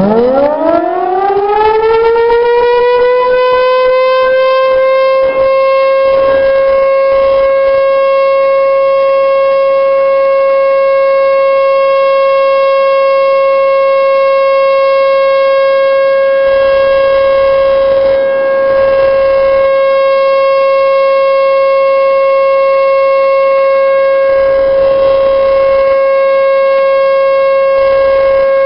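T-128 rotating outdoor warning siren winding up quickly from a low growl to a high tone within about two seconds, then holding a steady, loud tone as its horn turns on the pole.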